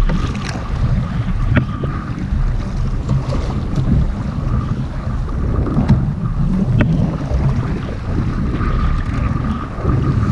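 Strong wind buffeting the microphone over choppy sea washing around a fishing kayak, with a few sharp knocks. A faint steady whine sounds at the start and again near the end.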